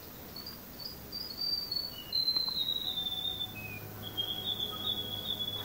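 High, thin wildlife calls: a run of short rising notes, then two long whistled notes of about a second and a half each, with a few brief lower notes between.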